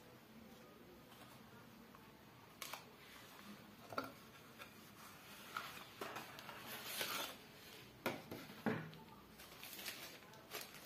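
Cardboard and paper packaging handled by gloved hands: a white cardboard insert is lifted out of a phone box and folded paper leaflets are pulled out, giving light taps, clicks and paper rustling from about three seconds in.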